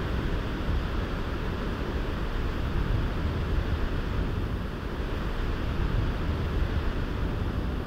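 Steady rumbling wind noise on the microphone, a low, gusting roar with no pitched engine note.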